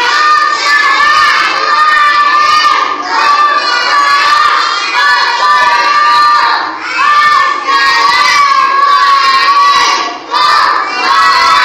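A group of young children chanting loudly in unison, in long held phrases with short breaks between them.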